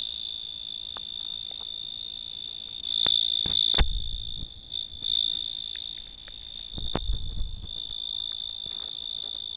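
A cricket singing a steady, high-pitched trill that grows louder for a moment about three to five seconds in. A couple of low thumps come about four and seven seconds in.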